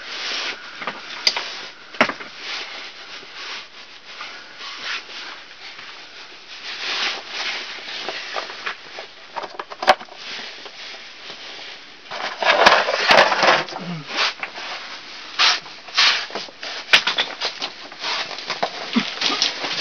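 Irregular rustling, rubbing and scraping as gloved hands handle plastic bags and a plastic tray, with a few sharp clicks. It is busiest about two-thirds of the way through.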